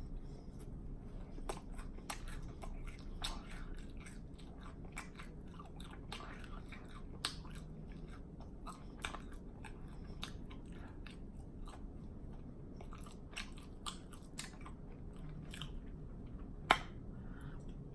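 Close-miked open-mouth chewing with lip smacking: a steady run of short smacks and clicks, one louder smack near the end.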